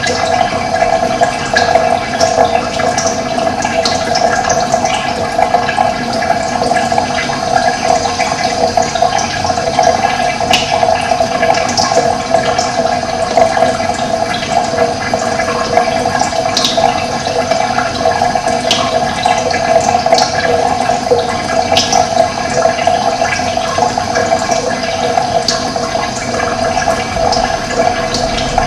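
Steady rush of running water, with short high bird chirps scattered through.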